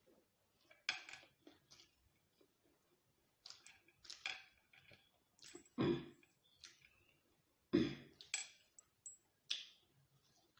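Close-up eating sounds: chewing and mouth clicks while eating fried chicken and rice by hand, a scatter of short irregular sounds with two louder ones about six and eight seconds in.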